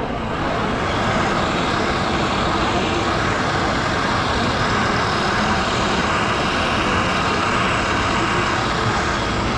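Traxxas RC crawler's electric motor and drivetrain running close by as it drives, a steady rushing whir over street noise and faint crowd chatter.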